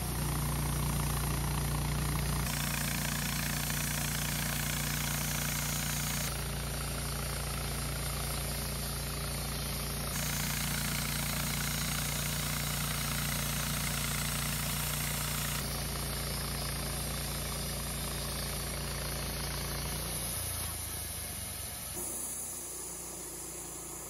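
An engine running steadily, its sound changing abruptly several times and dropping lower and quieter near the end.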